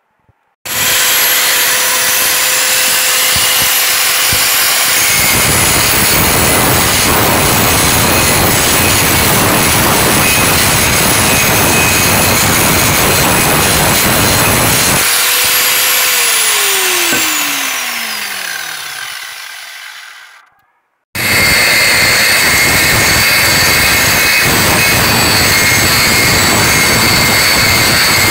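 Bosch angle grinder running and grinding truck leaf-spring steel: a loud steady whine under a harsh grinding hiss. About two-thirds through, the motor spins down with a falling whine and goes silent, then after a short gap it is running and grinding again.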